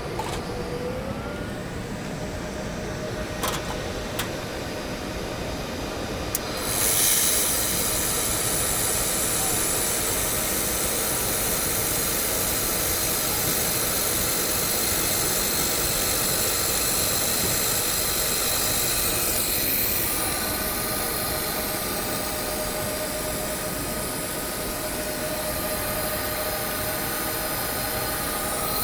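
Air-cooled all-in-one laser welder running with a steady hum and two sharp clicks. About six seconds in, a loud steady hiss sets in and carries on, as the machine works on aluminium.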